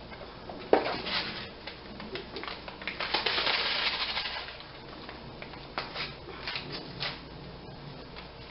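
A cardboard onion soup mix box being opened and its paper packet handled: a sharp snap about a second in, a longer crinkling rustle around the middle as the packet is pulled out, then a few small crackles as the packet is torn open.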